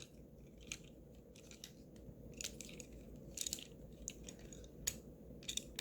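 Faint, scattered clicks and small knocks of the plastic parts of a Transformers Studio Series Deluxe Ratchet figure being moved and tabbed into place while it is transformed, about half a dozen separate clicks.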